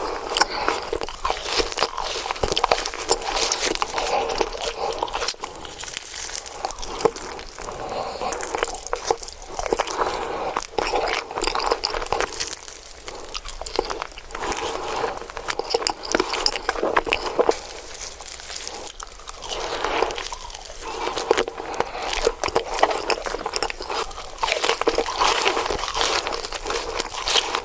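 Close-miked eating sounds: crunchy bites and steady chewing, with many small crackles and crunches.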